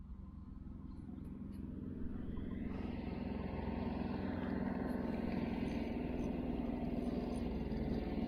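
An engine running at a steady pitch, growing louder over the first three seconds or so and then holding steady.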